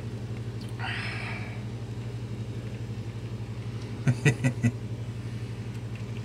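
A steady low hum with a fine regular pulse, a brief rushing hiss about a second in, and four quick knocks in a row around four seconds in.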